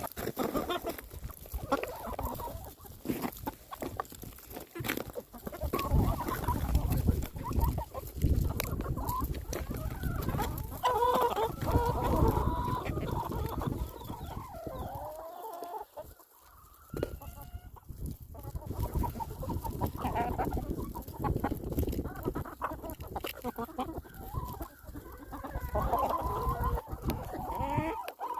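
A flock of backyard chickens clucking over food they are being fed, with a low rumble under the calls for much of the time and a short lull about halfway through.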